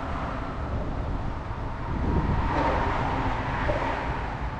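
Outdoor low rumble of wind buffeting the microphone, mixed with traffic noise. About two seconds in it swells, with a faint steady hum, as a vehicle passes on the elevated roadway overhead.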